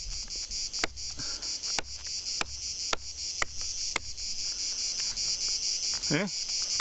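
Handmade parang blade chopping at a climbing rope against a pine trunk: six sharp strikes about half a second apart in the first four seconds. Insects chirr steadily throughout.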